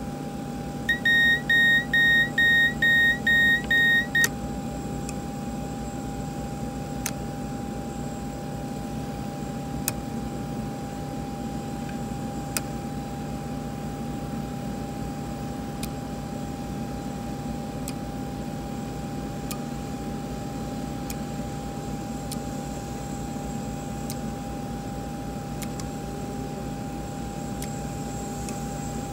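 Electronic warning beeps from a Hawker jet's fuel/refuel control panel as it is powered on, about eight short beeps over three seconds, followed by a steady electrical hum with a constant whine and a few sharp switch clicks.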